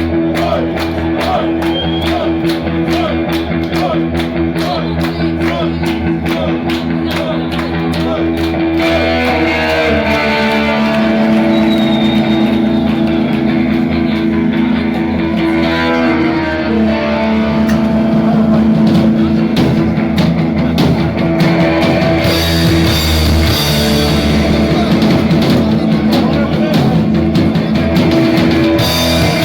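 Rock band playing, with guitar over bass and drums. A steady beat runs for the first nine seconds, the music changes at about nine seconds, and the cymbals ring out loudly from about 22 seconds in.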